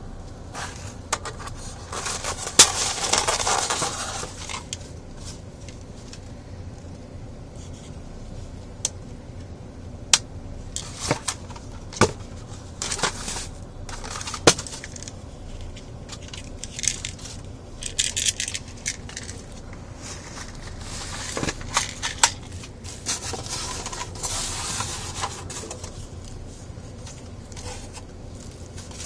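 Handling noise from an ABS-plastic airsoft pistol and its accessories being lifted out of styrofoam packaging: scattered sharp plastic clicks and knocks, with stretches of rustling and scraping against the foam.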